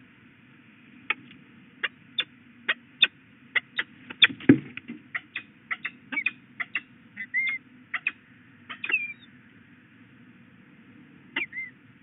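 Young peregrine falcon calling: a run of short, sharp chips about two a second, with a few drawn-out notes that bend in pitch in the second half. There is a dull thump about four and a half seconds in.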